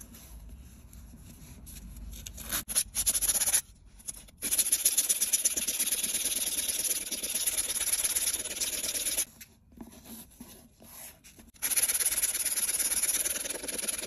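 Abrasive being scrubbed hard over a rusty metal knife scale to take off the rust, a steady rasping hiss. It starts light, gets loud about four seconds in, breaks off for a couple of seconds with a few short scrapes after about nine seconds, then resumes.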